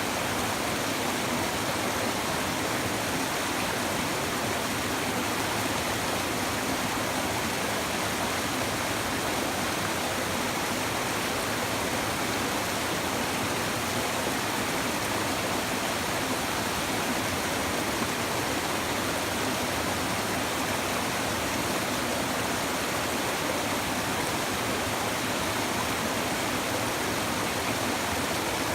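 Steady murmur of a shallow river flowing over stones, running evenly without change.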